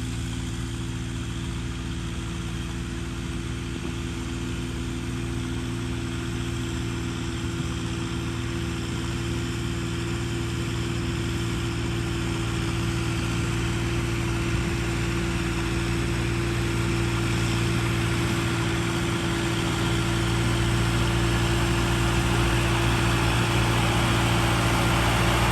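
Tractor engine running steadily at a constant speed, gradually getting louder.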